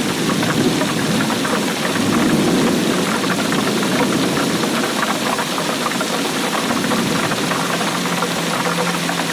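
Steady heavy rain, a dense patter of drops with a low, rumbling fullness underneath. A faint low hum joins near the end.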